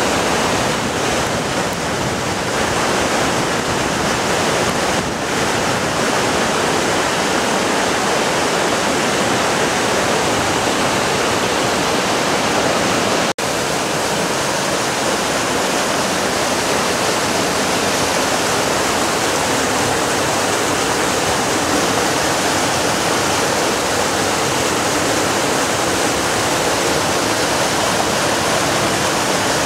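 Roaring River's whitewater cascading over boulders at the Alluvial Fan waterfall: a loud, steady rush of falling and tumbling water. It cuts out for an instant about halfway through.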